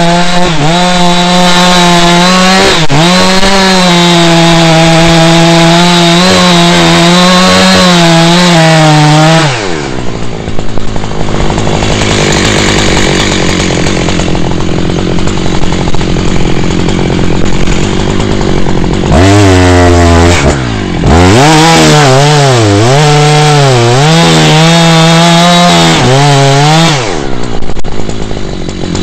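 Petrol chainsaw run at full throttle cutting into a poplar trunk, its pitch wavering as it loads in the wood. About nine seconds in it drops to a rattling idle. Around nineteen seconds it revs up again for another cut of about six seconds, then falls back to idle near the end.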